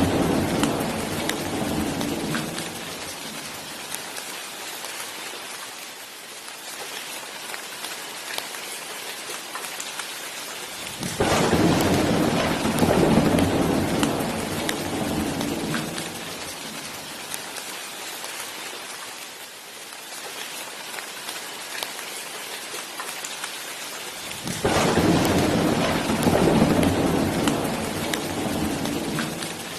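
Steady rain falling, with rolling thunder. A rumble fades out over the first few seconds, then two more break out suddenly, near the middle and again near the end, each dying away over a few seconds.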